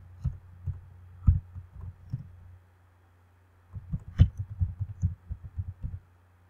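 Computer keyboard typing in two runs of quick keystrokes with a pause of about a second between them. Each keystroke is a dull, low thud, with a faint low hum underneath.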